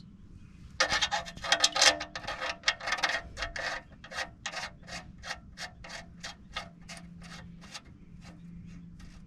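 Ratchet wrench clicking in quick back-and-forth strokes, loudest over the first few seconds and then thinning to about three strokes a second and fading, as the oil drain plug is backed out.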